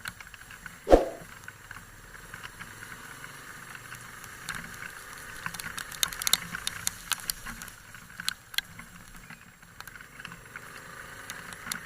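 A single loud knock about a second in, then a steady faint hiss with scattered irregular clicks and taps.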